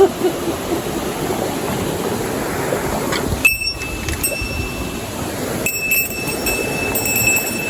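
A small mountain stream rushing and splashing steadily over stones. A thin, high steady tone comes and goes above it.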